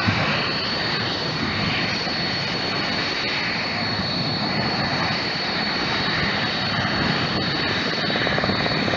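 Aircraft engine running steadily, its tone slowly swishing up and down as the aircraft moves.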